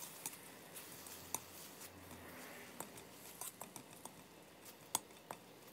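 Faint scraping and light clicks of a metal spoon against a stainless steel pan as curry paste is stirred and dry-fried until fragrant. The clicks come at irregular intervals, a handful over a few seconds.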